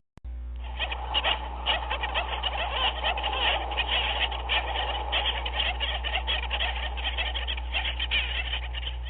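Penguin colony calling: a dense chorus of many overlapping squawks and chatters over a steady low hum. The sound cuts out completely for a moment right at the start, then resumes.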